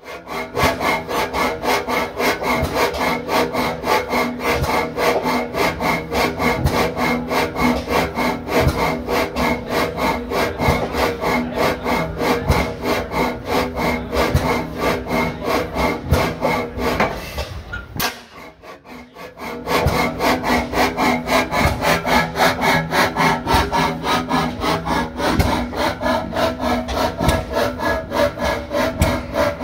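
50 hp Fairbanks Morse Type N stationary engine running with a fast, even, repeating beat. The sound drops away for about two seconds around the middle, then the same steady running resumes.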